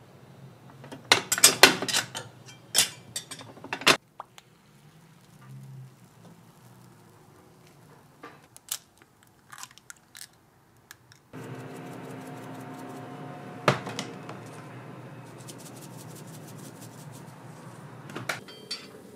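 Fish-shaped bread (bungeoppang) making at a mould grill: a quick run of sharp metal clacks and clatter, then scattered single clacks. About eleven seconds in, a steady hiss with a faint hum starts suddenly, and one or two more clacks come over it.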